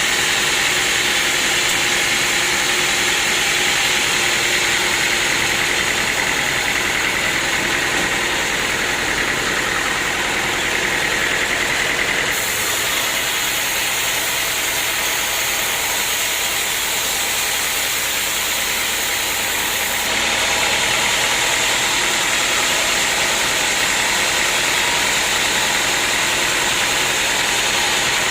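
Sawmill machinery running steadily, a continuous engine-and-saw drone. From about twelve to twenty seconds in a brighter, higher hiss joins in, then drops away.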